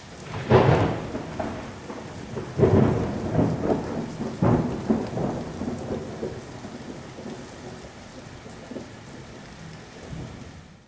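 Thunder rumbling over steady rain. Loud rolls come about half a second in, near three seconds and about four and a half seconds in, then the rumbling dies down.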